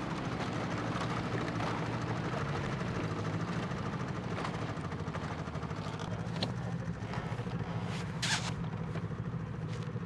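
Snowmobile engines running steadily, with a few short clicks over the top.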